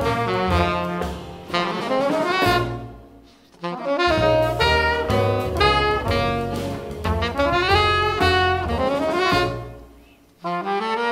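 Tenor saxophone and trumpet playing a jazz melody together over upright bass. The music comes in two phrases; each one dies away to a brief near-silent break before the band comes back in.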